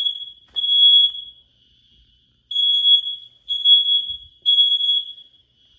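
Apartment fire alarm sounding a high-pitched beep in groups of three with a short pause between groups. This is the temporal-three evacuation pattern.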